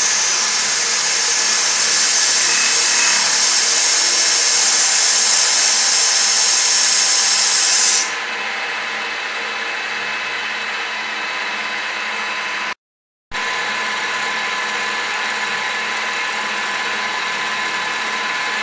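TOS FN20 milling machine dry-cutting aluminium under CNC, the spindle and cutter making a steady whirring hum with several steady tones. For the first eight seconds a loud high hiss from a compressed-air nozzle held at the cut rides over it, then cuts off suddenly. The sound drops out completely for about half a second a little past the middle.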